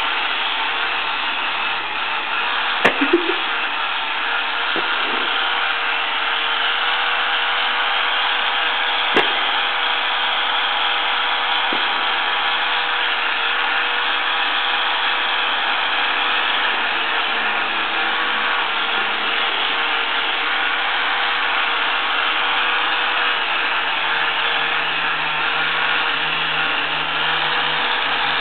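Handheld electric epilator running steadily, a constant motor whir with a steady hum under it. A few brief clicks about three seconds in, and one more near nine seconds.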